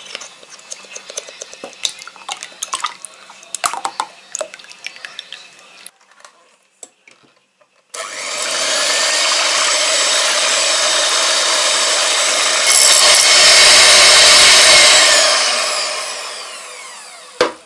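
A few light knocks and clinks, then an electric hand mixer whipping cream in a glass bowl: a loud, steady motor whine that steps up about five seconds after it starts and winds down, falling in pitch, near the end. A single knock comes just before the end.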